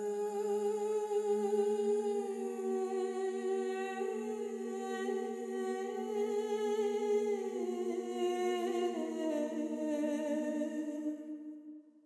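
Intro music of sustained, wordless hummed voices holding several notes at once that shift slowly, fading out near the end.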